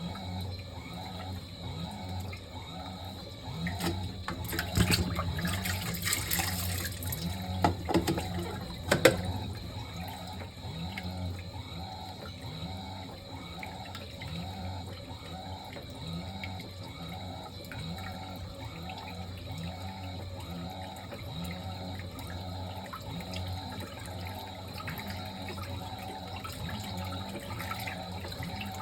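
Fisher & Paykel MW059 top-loading washing machine on a blankets wash: water running and sloshing in the tub, with a low rhythm repeating a little over once a second. Louder splashing and knocks come between about four and nine seconds in.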